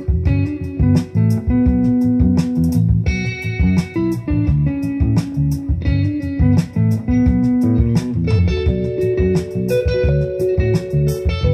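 Guitar-led music with a bass line and a steady beat, recorded in the room as it plays through Wilson Audio TuneTot speakers driven by Leema Acoustics Elements pre and power amplifiers.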